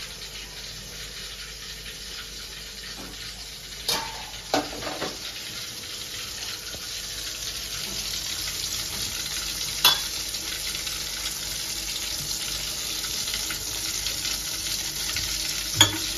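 Indian halibut shallow-frying in hot oil in an aluminium kadai: a steady sizzle that slowly grows louder, with a few sharp clicks.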